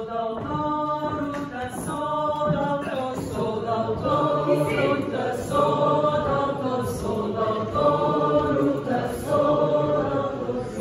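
Small women's vocal ensemble singing a Lithuanian folk song a cappella, several voices in close harmony on held notes.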